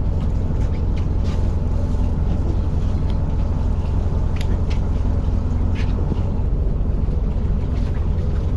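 Fishing boat's engine running steadily with a low hum, and a few light ticks over it.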